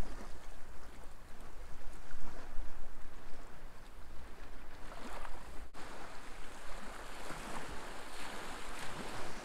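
Small waves lapping and washing onto a sandy, rocky shore, a steady wash of water broken once, a little over halfway through.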